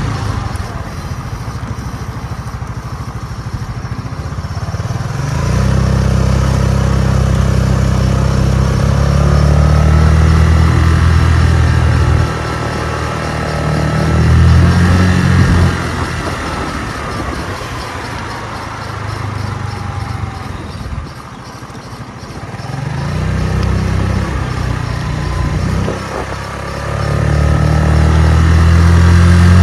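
Chinese 150cc scooter's engine running under way while being ridden, its note swelling and easing several times as the throttle is opened and backed off, with a lull about two-thirds through. It runs smoothly with good pickup.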